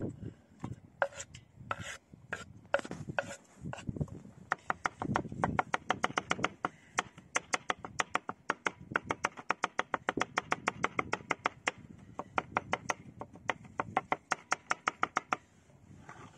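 Knife chopping food on a cutting board. A few irregular cuts and handling sounds come first, then a fast, even run of chops at about four a second for roughly ten seconds, which stops about a second before the end.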